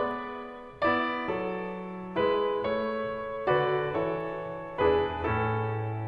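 Background piano music: slow chords struck about every second and a half, each left to ring and fade.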